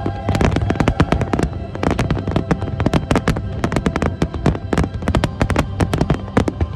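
A rapid barrage of aerial firework shells bursting, several sharp bangs a second in quick succession, with music playing underneath.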